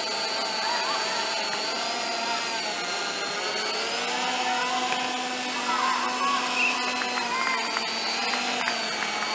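Small quadcopter drone's propellers whining steadily as it hovers and manoeuvres, the pitch wavering and dipping briefly partway through as the motors change speed.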